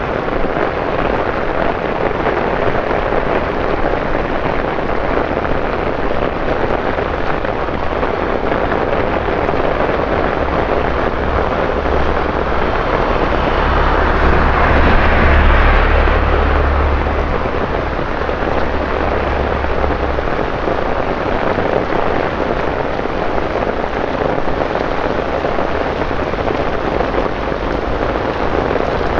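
Torrential rain falling on wet pavement and road, a steady dense hiss. About halfway through, a double-decker bus drives past on the wet road: its low engine rumble and tyre spray swell up and fade away over several seconds.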